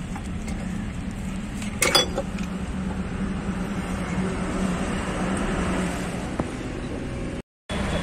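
A single sharp metallic clank about two seconds in, as the heavy cast casing cover of the truck's gear housing is handled against the gears. Under it runs a steady engine rumble.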